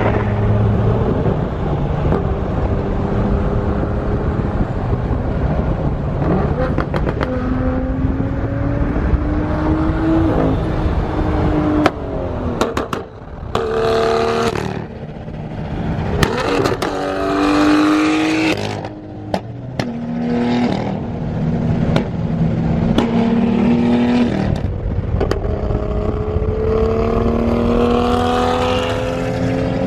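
A supercar engine accelerating hard. Its pitch climbs and drops back several times as it shifts up through the gears, with bursts of sharp exhaust pops and crackles twice in the middle, when the throttle lifts.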